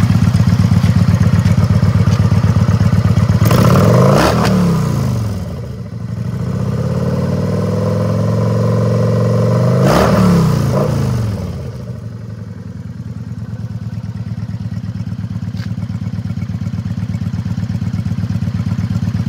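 2013 Kawasaki Vulcan VN900's V-twin engine idling, revved twice: a short blip about four seconds in, then a longer rev that builds to a peak about ten seconds in and drops back. It settles to a steady idle.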